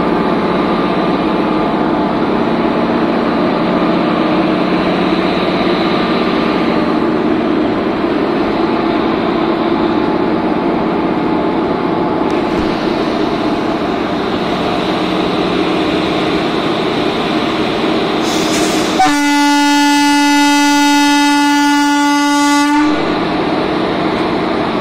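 Indian Railways train at standstill with its engine running steadily, then its roof-mounted air horn blows one long note for about four seconds, starting about 19 seconds in.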